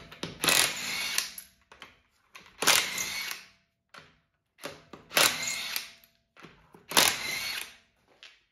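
Cordless 1/2-inch drive impact wrench with a 21 mm socket spinning off the front wheel's lug nuts, in four bursts of about a second each with short pauses between.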